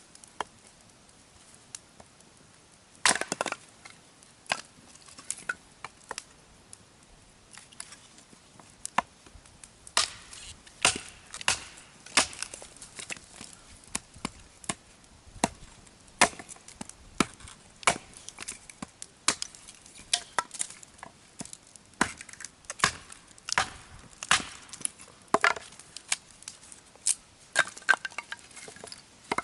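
Dry firewood giving irregular sharp cracks and knocks, dozens of them, some in quick clusters.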